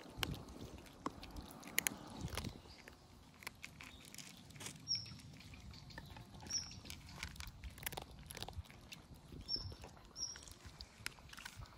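Cats eating: one laps milk from a bowl while another chews food, heard as many quick, irregular little clicks and ticks.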